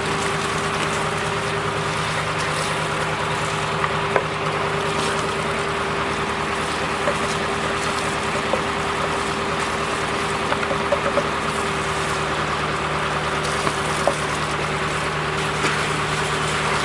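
Vacuum truck's engine and suction pump running steadily while pumping out a septic tank, with a few light knocks; the low drone changes slightly about twelve seconds in.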